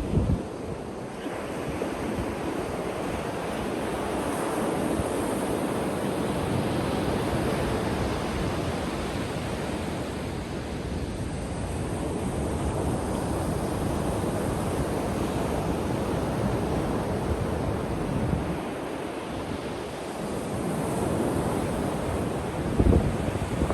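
Ocean surf washing onto a beach, the wash swelling and easing every few seconds. Wind buffets the microphone briefly near the start and again near the end.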